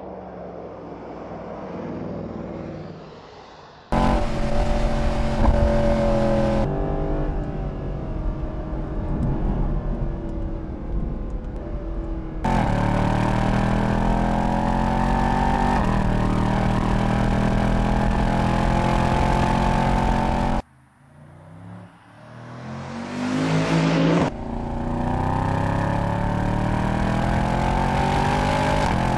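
Mercedes-Benz SLS AMG's 6.2-litre V8 engine pulling under acceleration, its pitch climbing steadily, in several edited takes that cut in and out abruptly. About three-quarters of the way through there is a brief drop to quiet, followed by a rising sweep as the engine comes back.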